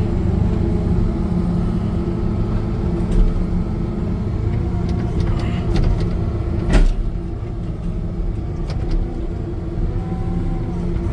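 Hitachi ZW50 compact wheel loader's diesel engine running steadily while it handles a load of firewood on pallet forks, with a single sharp knock about two-thirds of the way through.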